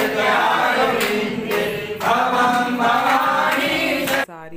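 A group of voices singing a Hindu devotional chant together at a puja. The singing cuts off suddenly near the end.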